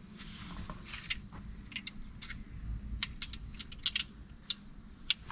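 A steady high trill, typical of crickets, under a dozen or so scattered sharp clicks and light taps, the clearest about one, three and four seconds in.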